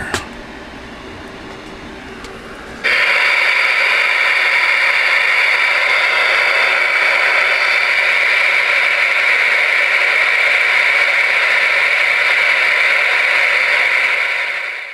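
Loud, steady receiver static from the speaker of a Ranger RCI-69FFC4 10-meter radio, cutting in suddenly about three seconds in after a click at the start.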